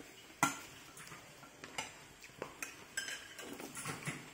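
A spoon clinking and tapping against a ceramic bowl of noodle soup while eating: one sharp clink about half a second in, then a run of lighter taps.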